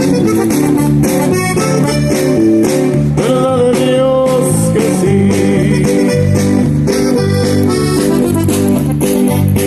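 A live band plays Mexican music, with an accordion over strummed guitars and bass in a steady rhythm.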